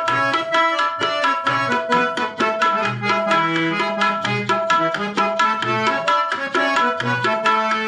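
Instrumental devotional tune: a harmonium holding and changing notes over a quick, steady tabla beat, with a deep drum stroke about once a second.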